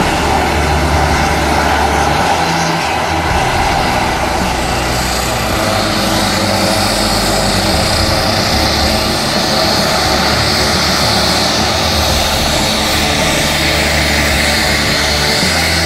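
Air tanker engines running on the ramp: first a four-engine BAe 146 jet tanker taxiing away, then a CAL FIRE Grumman S-2T Tracker's twin turboprop engines as it taxis toward the listener. The engine noise is loud and steady throughout, and a high turbine whine grows stronger from about a third of the way in.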